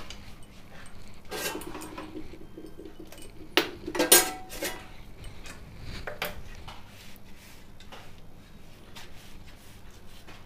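A spoon scraping and knocking against a kadhai and plate as thick, cooked besan batter is scooped out and spread, with the loudest knocks a little after three and four seconds in.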